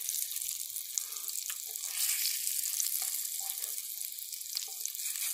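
Breaded fish frying in hot oil in a pan: a steady sizzling hiss with small pops and crackles, and a few sharper ticks.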